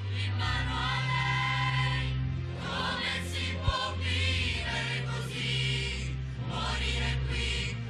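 Choral music, voices singing over sustained low notes, with a single sharp click about halfway through.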